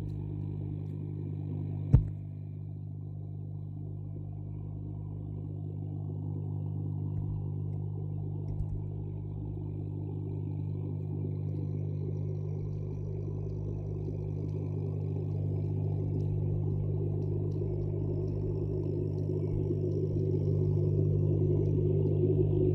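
A steady low hum made of several even tones, with one sharp click about two seconds in.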